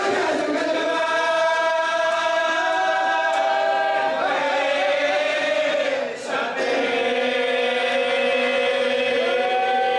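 Unaccompanied male voices chanting a marsiya, an Urdu elegy: a lead reciter sings into a microphone in long held notes while other men's voices join him. The voices break off briefly about six seconds in, then go on.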